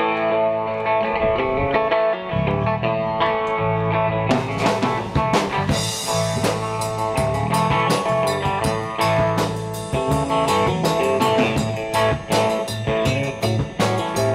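Live rock and roll from an electric guitar, electric bass and drum kit trio, playing an instrumental passage with no singing. The guitar and bass play at first, and the drums and cymbals come in about four seconds in and keep a steady beat.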